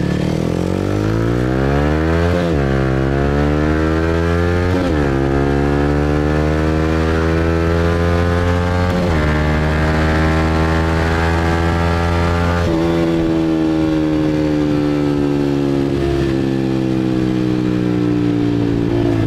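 Motorbike engine pulling away and speeding up. Its pitch climbs, dips briefly a few times, then falls slowly over the last several seconds as it eases off.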